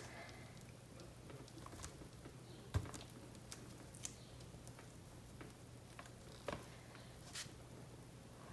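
Quiet room tone with a low steady hum and a few faint, scattered taps and clicks, the sharpest about three seconds in.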